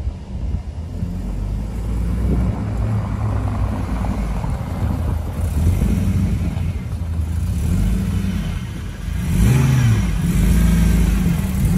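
VW Golf Cabrio's supercharged G60 four-cylinder engine driving past over cobblestones, growing louder as the car comes close; near the end the engine speed rises and falls a few times as the car pulls up.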